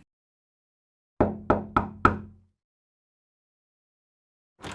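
Four quick knocks on a door, about a quarter second apart, with a short burst of clicks near the end.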